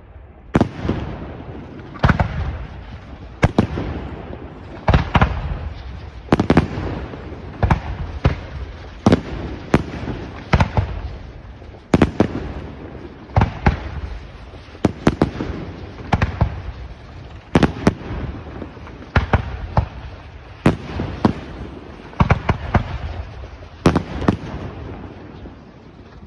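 Aerial firework shells bursting in steady succession, a sharp bang about every second and a half, each followed by a rumbling echo.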